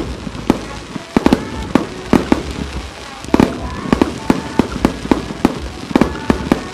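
Wide starmine fireworks barrage: many small aerial shells fired in rapid succession, their sharp bangs coming about three a second with a short lull a little before the middle.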